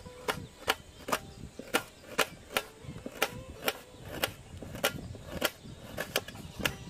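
A small knife slicing thin rings from a peeled onion, its blade clicking sharply on a stainless steel plate about twice a second.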